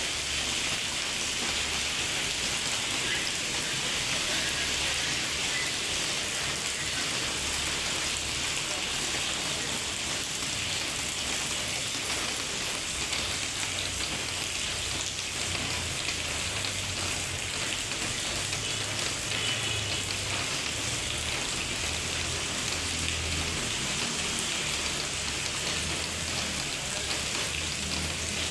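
Heavy rain falling steadily, a dense even hiss, with an uneven low rumble underneath that grows stronger in the second half.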